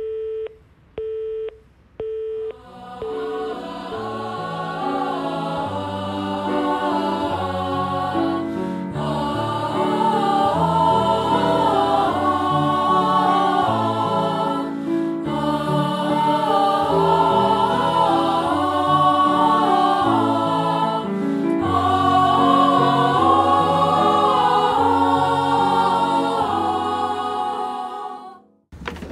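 Three short telephone busy-tone beeps about a second apart, heard through the handset, signalling that the call cannot go through. An a cappella vocal ensemble then comes in with slow, sustained chords in close harmony that swell, and it stops shortly before the end.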